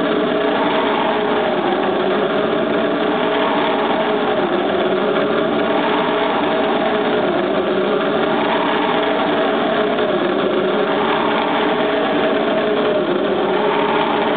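A steady, dense drone with several held low pitches that waver slightly and never stop: a sustained droning sound score under a physical-theatre performance.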